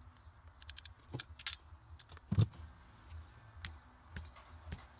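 Ratcheting crimp tool clicking as it squeezes a red insulated butt connector onto a wire: a quick run of clicks about half a second in, a louder knock near the middle, then scattered light clicks of handling over a low hum.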